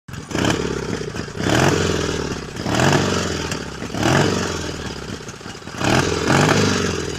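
A motorcycle engine revved in a series of blips, about five, each rising in pitch and then falling back, with a mechanical clatter.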